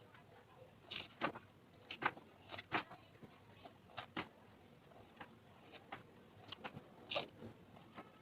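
Irregular light clicks, taps and rustles from handling a DVD boxset and its packaging: about a dozen short sharp sounds, some in quick pairs, scattered over several seconds.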